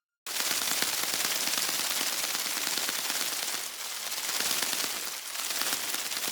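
A rapid, dense crackling rattle, like a long burst of machine-gun fire or a string of firecrackers, that starts abruptly and runs at an even level.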